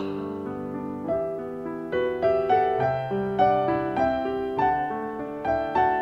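Background piano music, a continuous run of notes played over lower held notes.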